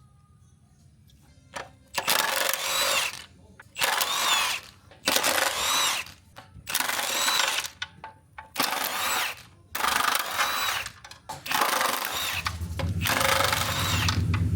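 Power impact wrench run in seven short bursts of about a second each, its motor whining up and down as it hammers, working loose suspension bolts while control arms are removed. The last burst is longer and heavier.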